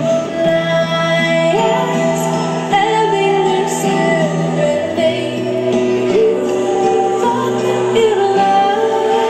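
Recorded song with a woman singing in long held notes over sustained chords and bass, accompanying a lyrical dance.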